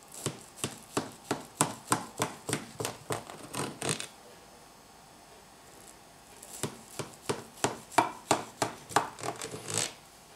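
Kitchen knife sawing back and forth through a baked cake's browned crust, about three strokes a second, in two runs with a pause of about two seconds between them.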